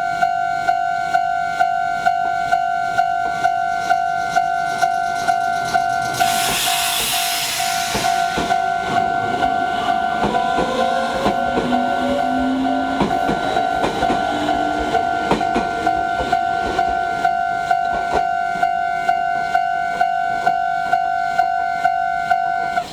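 Japanese railway level-crossing alarm ringing its two-tone bell about twice a second while a Meitetsu 3500 series electric train passes. A burst of hissing comes about six seconds in, then a whine rising in pitch and wheels clacking over the rail joints. The crossing bell stops right at the end.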